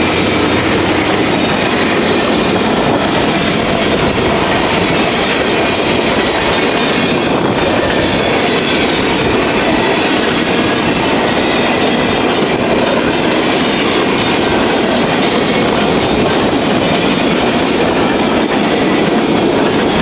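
Empty centre-beam lumber flatcars rolling fast past the camera, a loud, steady rumble with the wheels clattering.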